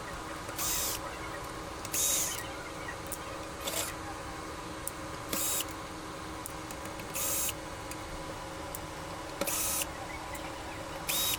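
Steady machinery hum with several steady pitches in it, broken by about seven brief hiss-like noises that come irregularly every one to two seconds.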